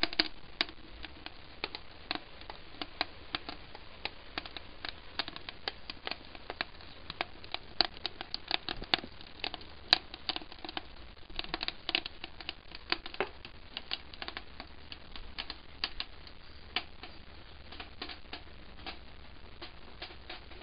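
Eggs and spinach frying in pans over a wood-fired rocket stove: irregular crackling pops, several a second, over a faint hiss.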